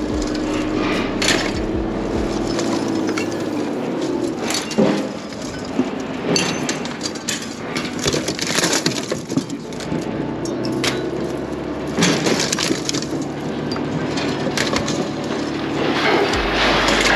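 Rusty scrap metal clanking and clattering at irregular intervals as pieces are lifted out of a pickup truck bed and thrown onto a scrap pile. A machine engine runs behind it, its pitch rising and falling now and then.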